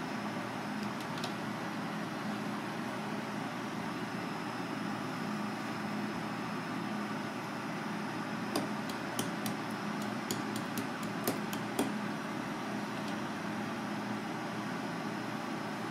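Kitchen knife cutting clam meat on a plastic cutting board, with a quick run of about a dozen sharp taps about two-thirds of the way through, over a steady background hum.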